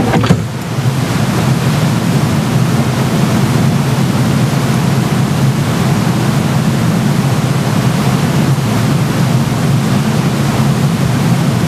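Room tone during a moment of silence: a steady, loud hiss with a low hum underneath. There is a brief knock just after the start.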